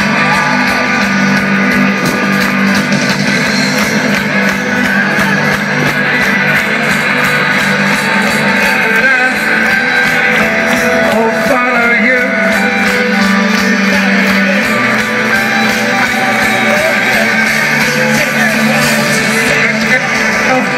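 Live rock band playing loudly through a festival sound system, with guitars over a steady drum beat in a passage without vocals, heard from within the crowd.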